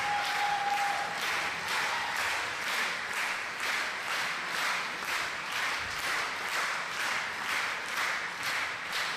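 Audience applauding, the clapping falling into a steady beat of about three claps a second.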